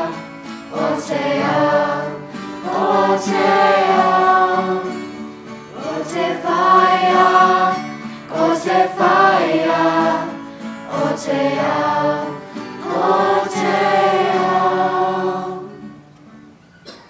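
Children's school choir singing a slow song together, accompanied by acoustic guitar. The last phrase fades out about a second before the end.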